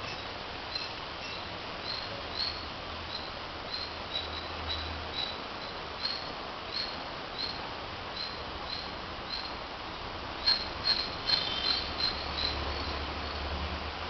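Short high chirps repeating about once or twice a second, then a louder flurry of overlapping chirps about ten to twelve seconds in. A faint low rumble lies underneath twice.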